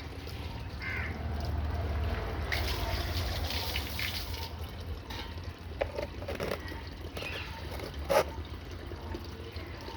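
Water pouring and trickling into a vessel for a saline nasal rinse, loudest from about two and a half to four and a half seconds in. Two sharp knocks come later, the second, near the end, the louder.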